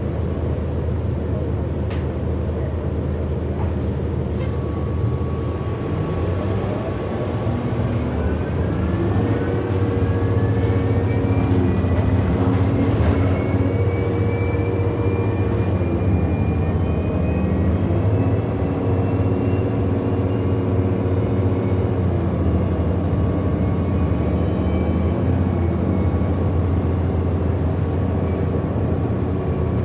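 Inside a 2008 Orion VII NG hybrid-electric bus under way: a steady low engine rumble, with the hybrid drive's electric motor whine rising in pitch as the bus speeds up, twice, over a steady high tone.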